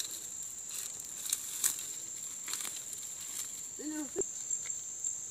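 Insects droning in a steady high-pitched tone, with a few faint knocks and a short voice sound about four seconds in.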